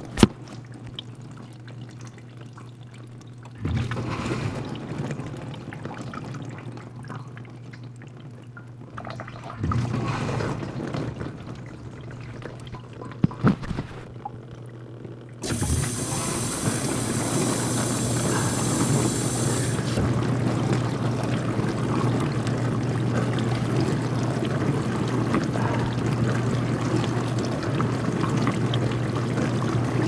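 Kenmore built-in dishwasher running its cycle: the pump motor hums steadily while water rushes and splashes inside the tub. The sound steps up about fifteen seconds in and stays louder, with a sharp knock at the very start.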